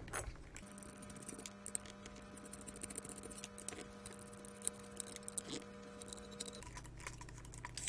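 Faint small clicks and ticks of a precision screwdriver turning out the tiny screws that hold a rotary encoder's metal mounting bracket. A faint steady hum sits under it and stops near the end.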